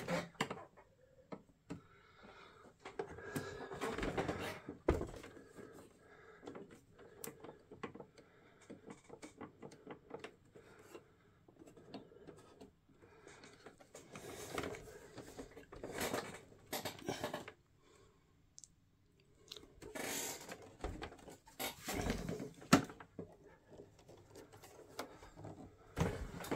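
Handling noises from a Sharp GF-9494 boombox: its metal carry handle and plastic case knocking, clicking and scraping irregularly as they are moved, with one sharper knock late on.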